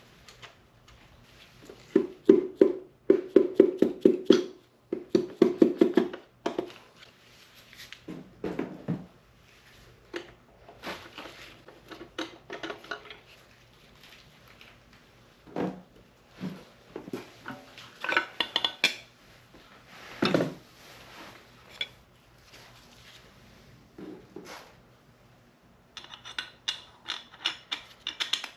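Metal tools clanking and tapping on engine parts as a piston and connecting rod are taken out of a Ford Model A four-cylinder block. A run of quick ringing metal taps comes a couple of seconds in, followed by scattered clanks and clicks.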